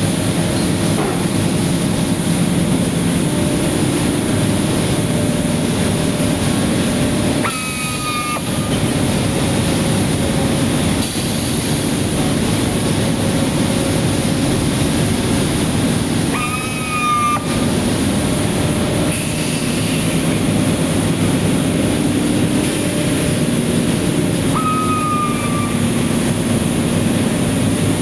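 Industrial compressor running, with a loud, steady machine rumble. Three times, about every nine seconds, the rumble dips briefly and a short whistling tone sounds and falls slightly in pitch.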